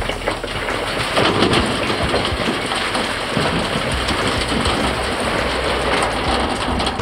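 Granite rocks tipped from a wheel loader's bucket clattering and rattling into a Hardox steel tipping-trailer body, with the loader's engine running underneath. The clatter is loudest about a second in.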